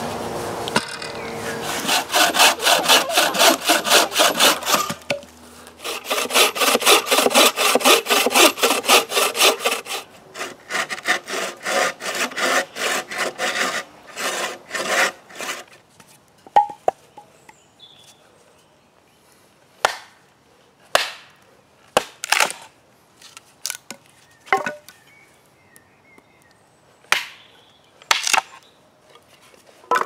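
A hand saw cutting through wood in two runs of quick back-and-forth strokes, which slow down partway through. Then single sharp axe strikes split firewood on a chopping block, a second or more apart.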